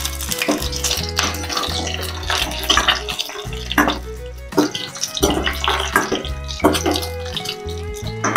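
Background music with a steady bass line over sizzling frying oil and a metal spoon scraping and tapping a wok as whole boiled eggs are turned.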